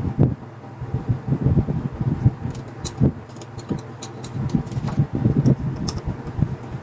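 Hands fitting the metal lever handle onto the side of a Lassane Espiramatic spiral-binding punch: irregular dull knocks and bumps mixed with small sharp metallic clicks.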